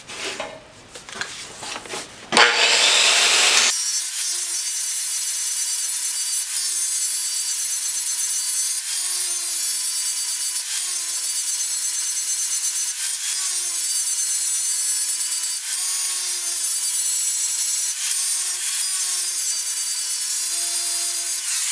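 Large angle grinder grinding the forged steel end of a drill-rod digging bar to shape. The continuous loud grinding starts about two and a half seconds in, with a faint tone that wavers slightly in pitch.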